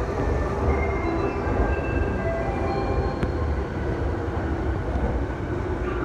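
JR Yamanote Line electric train running along the rails, heard from inside the train: a steady low rumble with short high tones coming and going, and a single click a little over three seconds in.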